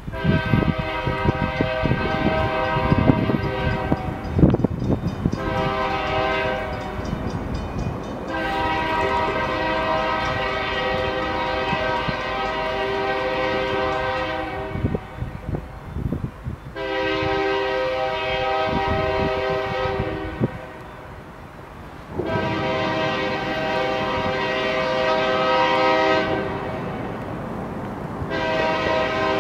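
Union Pacific freight locomotive's multi-chime air horn blowing a chord six times over a low rumble: a long blast, a short one, three long ones about 4 to 6 seconds each, then a short one starting near the end.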